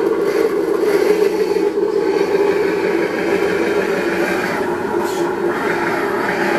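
Simulated engine sound from an RC car sound module, played through its small speaker: a steady, buzzy engine running note.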